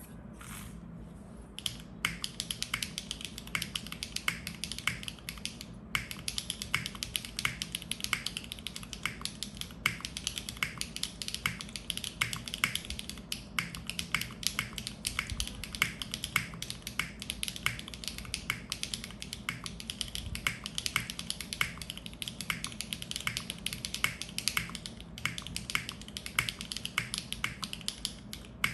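Continuous typing on a custom mechanical keyboard: a Neo65 Cu with Keygeek M3 switches on an aluminum plate, GMK Matsu keycaps and no foam. The key strikes begin about two seconds in as a fast, uneven run of sharp clacks.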